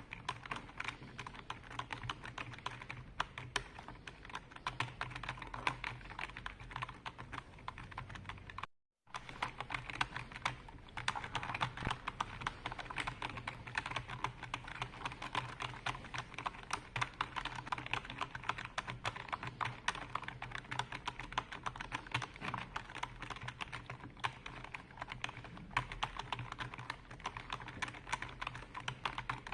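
Continuous typing on a computer keyboard: rapid, irregular key clicks. The sound cuts out completely for a split second about nine seconds in.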